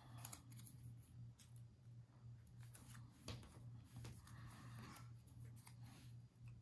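Faint rustling and light tapping of small paper pieces being handled and pressed onto a scrapbook page, in short scattered bursts, over a low steady hum.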